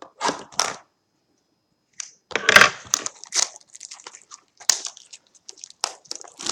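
Cardboard and plastic wrapping of a sports-card hobby box being handled and torn open: irregular crinkling, tearing and crushing noises. A short cluster at the start, a pause of about a second, then the loudest tear about two and a half seconds in, followed by a run of small crackles.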